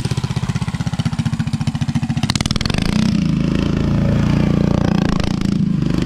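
Mini bike's small engine running hard and revving as the rider spins a donut, its note climbing and strengthening about halfway through.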